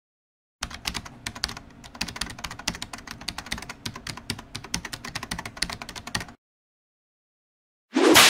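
Keyboard-typing sound effect: rapid, uneven key clicks for about six seconds as on-screen text is typed out. After a short silence, a single whoosh comes near the end.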